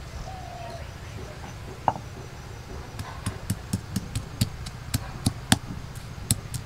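Stone pestle pounding peeled ginger on a flat stone grinding slab (shil-nora), crushing it. One knock a little under two seconds in, then steady strokes about three a second from about three seconds in.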